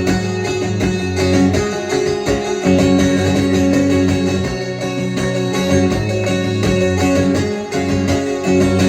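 Guitar playing sustained chords in an instrumental passage of a song, with no singing.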